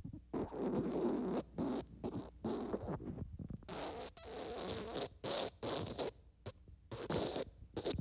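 Wet, sputtering diarrhea fart sound effect: a long run of short spluttering bursts broken by brief gaps.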